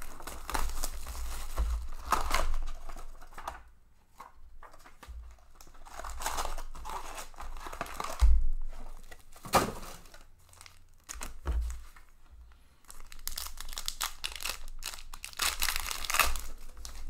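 Cardboard trading-card box being torn open and foil card packs handled and ripped open: irregular bursts of tearing and crinkling with short pauses between.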